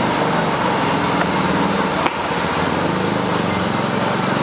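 Steady street traffic noise with an engine running nearby, a constant low hum, and a single sharp click about two seconds in.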